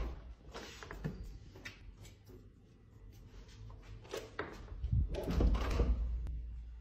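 Knocks and rubbing of a glass balcony door being opened as a husky noses through it, with a louder muffled low rumble of handling about five seconds in.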